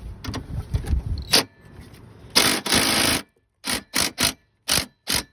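Small Craftsman cordless drill with a socket bit working on an ATC's bolts: low clattering and a sharp click, then a loud run of about a second, then a string of short bursts about three a second as the trigger is pulsed on the bolt.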